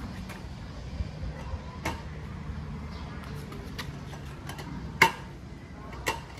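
Metal slats of a roll-up folding table top clacking against each other and the frame as they are laid out by hand: a few sharp clicks about a second apart, the loudest about five seconds in, over a faint low hum.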